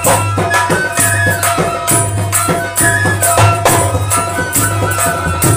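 Himachali Nati folk music: a dholak drum beating a steady rhythm under a harmonium melody.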